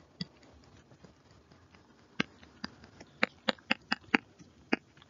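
Stylus tapping on a writing tablet as letters are handwritten: one sharp tap near the start, then, about two seconds in, a quick run of about nine taps.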